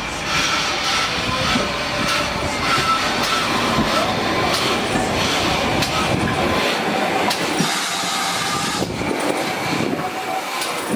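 GWR 5101 class 2-6-2 tank locomotive No. 4144 passing close by. Its wheels and motion clank over the rail joints, with brief wheel squeals now and then.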